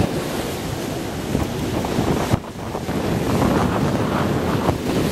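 Wind buffeting the camcorder microphone over the steady wash of surf breaking on the beach, with a brief drop in level about halfway through.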